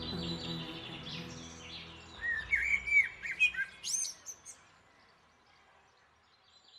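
Background music fading out, then a bird chirping: a quick run of short rising and falling whistles with one sharp upward note, lasting about two seconds before it dies away.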